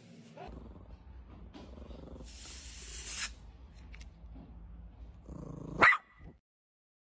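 Yorkshire terrier growling low and steadily, then giving one sharp, loud bark near the end.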